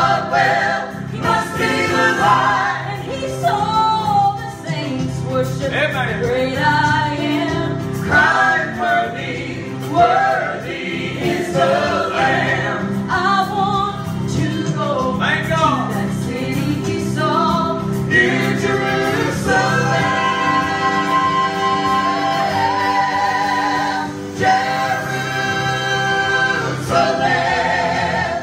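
Mixed male and female voices of a gospel group singing a hymn in harmony into microphones, holding long sustained chords from about twenty seconds in.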